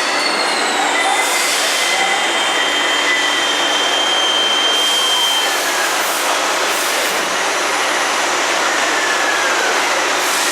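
CNC machine tool running and cutting metal: a loud steady din with thin high-pitched whines that drift slightly in pitch, and short hissing bursts now and then.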